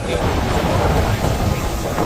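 Heavy rainstorm: a steady, dense downpour with a deep low rumble underneath.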